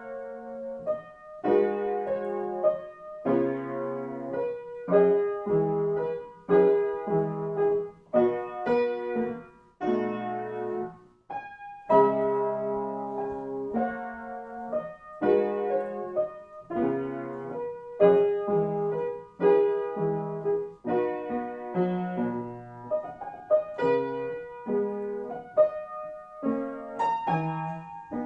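Piano music: chords struck about once a second, each left to ring and fade before the next.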